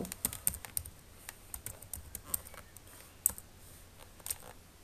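Computer keyboard keys clicking as a word is typed: irregular keystrokes, with one louder click about three seconds in.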